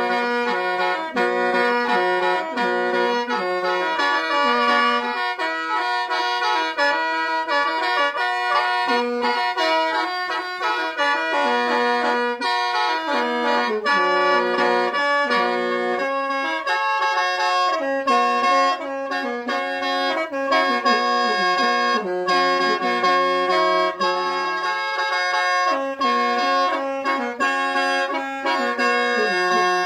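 Khaen, the Lao bamboo free-reed mouth organ, played continuously: a running melody of changing chords over steady drone notes.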